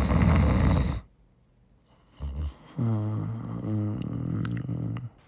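A man doing a mock snore as a joke: a loud rasping snore for about a second. After a pause comes a short snort, then a long drawn-out voiced breath out.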